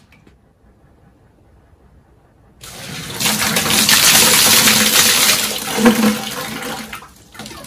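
Mains water gushing and spraying out of an open flexible water softener supply line, after the plastic bag tied over its end blows off under incoming water pressure: the sign that this is the incoming supply line. It starts about two and a half seconds in, stays loud for a few seconds and dies down near the end.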